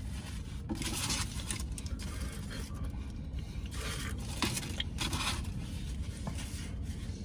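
Aluminium foil wrapper of a burrito crinkling in several short bursts as it is handled, over a steady low hum.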